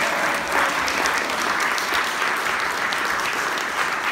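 Audience applauding: a steady, dense patter of many hands clapping.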